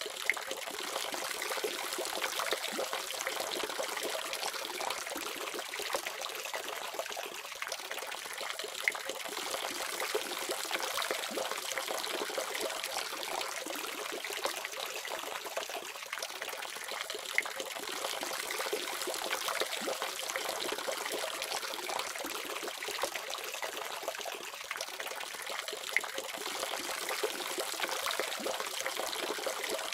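Water running steadily from a faucet: an even rush of splashing, with small drips and splashes standing out now and then.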